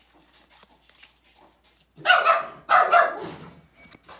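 A pet dog barking: three loud barks in quick succession about two seconds in, after faint rustling and clicks of cards being handled.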